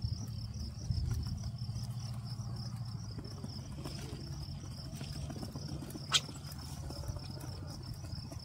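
Insects chirping in a steady, fast-pulsing high trill over a low rumble, with one sharp click about six seconds in.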